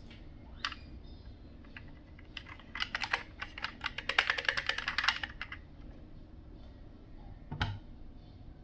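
Glass marbles clattering along a wooden marble run. A single click comes just under a second in, then a rapid rattle of clicks for about three seconds, then one knock near the end.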